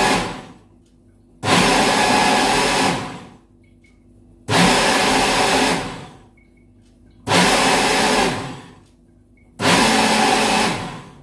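Small personal blender pulsed in short bursts, blending cucumber, parsley and mint leaves into a green juice. After the tail of one burst, the motor whirrs four more times, each run about a second and a half long, starting abruptly and winding down, with near quiet between.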